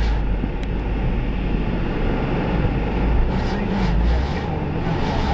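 Mini Cooper S driving on a wet skid pan, heard from inside the cabin: engine and tyre noise as a steady low rumble.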